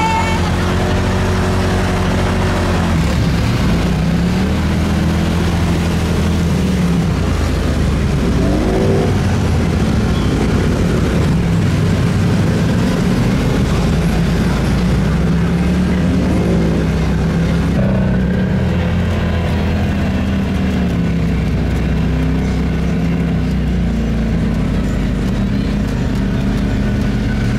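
ATV engines running and revving, with rises in revs about 8 and 16 seconds in.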